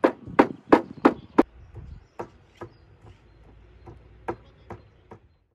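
Heavy cleaver chopping raw meat on a thick wooden log chopping block, about three strokes a second. The strikes are loud for the first second and a half, then come fainter and further apart, and stop suddenly just before the end.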